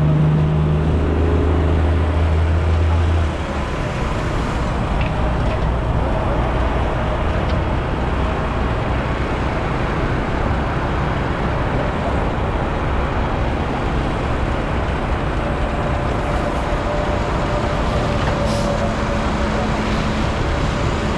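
Concrete mixer truck's engine running: a deep, loud engine drone drops away about three seconds in, leaving a steady rumble.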